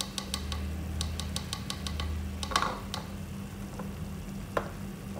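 A plastic measuring spoon clicking quickly and repeatedly against a glass bowl, about six taps a second for two seconds, as cornstarch is knocked out of it. A short scrape follows about halfway, and one more click comes near the end.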